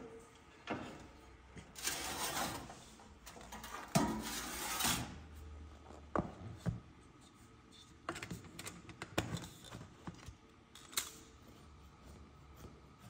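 Handling of a metal cake tin and oven tray: scattered clicks and knocks with two stretches of scraping, the loudest a sharp knock about four seconds in.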